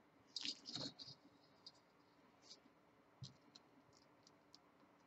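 Faint light clicks and ticks of glass beads and thin beading wire being handled as a beaded loop is measured and formed: a small cluster of clicks about half a second to a second in, then scattered single ticks.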